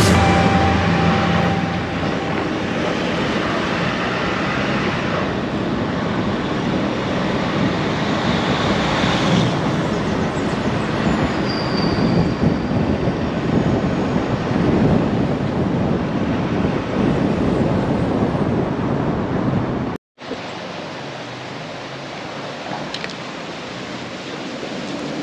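Vehicle engine, tyre and wind noise while driving on a rough, potholed road: a steady rumble. About twenty seconds in it cuts off abruptly and gives way to quieter outdoor noise.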